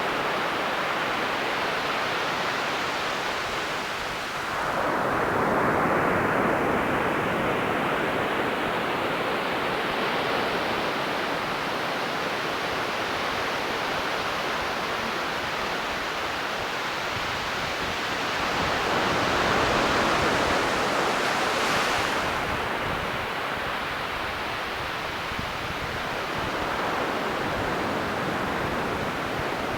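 Ocean surf on a beach: a continuous rush of water that swells as a wave breaks about five seconds in and again around twenty seconds in, with a brief sharp sound shortly after the second.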